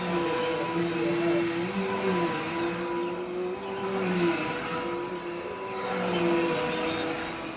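Vacuum cleaner running steadily, its motor hum shifting a little up and down in pitch every second or so over the rush of air.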